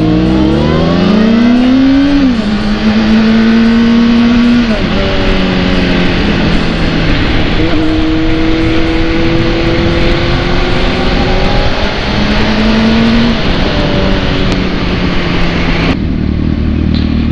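Honda CBR600 inline-four sport-bike engine pulling away and revving up, stepping down in pitch with upshifts about two and five seconds in, then holding a steady note at cruising speed. Wind rushes over the camera microphone and falls away near the end as the bike slows.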